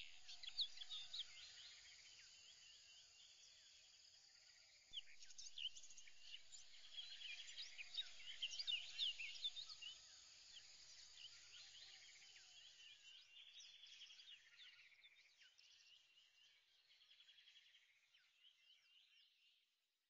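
Faint chirping of birds with insect-like trills, a nature ambience that grows busier about five seconds in and then fades out near the end.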